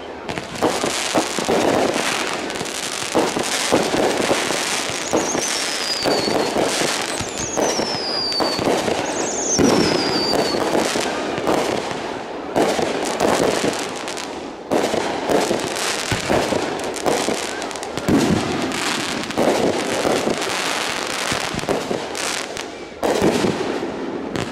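Consumer fireworks firing in quick succession: a continuous barrage of bangs and crackling from aerial bursts. Three short falling whistles sound between about five and eleven seconds in.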